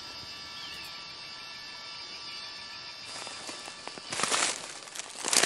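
Steady insect buzz in the woods, then footsteps crunching and crackling through dry leaves and brush, starting about three seconds in and growing louder.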